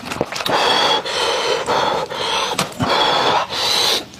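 Close-miked mouth sounds of a man eating meat torn from a spiced sheep's head: chewing and sucking with heavy breaths, in a run of noisy bursts about half a second each.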